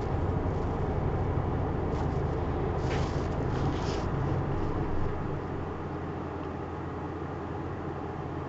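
Isuzu PKG-LV234N2 city bus's straight-six diesel engine running with a steady low drone, with short hisses of air about three seconds in. About five seconds in the engine note drops and settles to a quieter steady hum.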